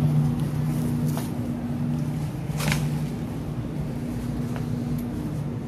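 Steady low mechanical hum of several fixed tones, typical of refrigerated produce display cases, with a short sharp rustle about two and a half seconds in.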